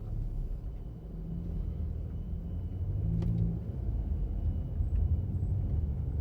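Car driving, heard from inside the cabin: a steady low engine and road rumble that grows louder as the car picks up speed, with a single sharp click about three seconds in.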